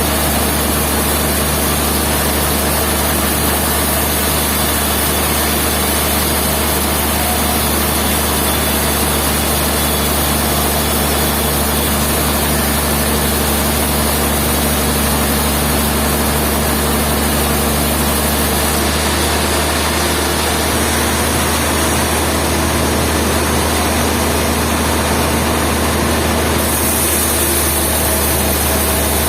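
Sawmill machinery running steadily: a loud, continuous mechanical drone with a strong low hum and no separate knocks or cuts standing out.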